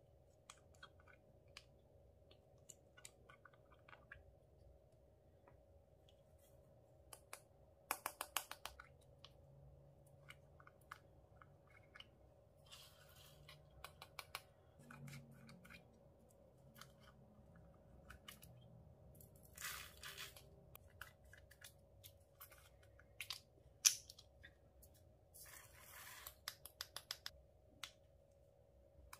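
Faint clicks, taps and rustles of small plastic cosmetic containers handled by hand: round plastic compacts and lip balm tubes with snap-on caps. There is a quick run of clicks about eight seconds in and a single sharp click past the middle, over a faint steady hum.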